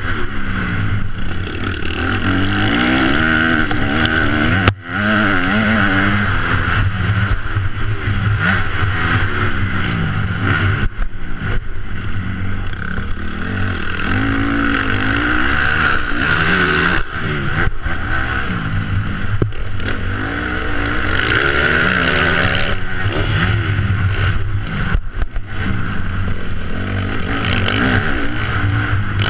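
Motocross bike engine heard close up from a camera on the bike's front fender, revving up and down over and over as the throttle is opened and closed through the corners and straights. A steady rush of noise lies under the engine, and the sound drops out briefly about five seconds in.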